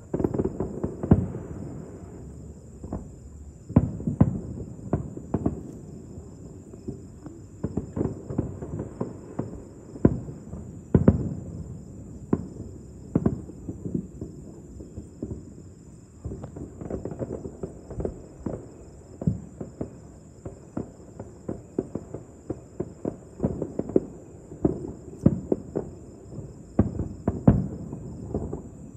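Aerial fireworks shells bursting in a rapid, irregular series of booms and pops, with a few louder booms scattered through, over a steady high insect trill.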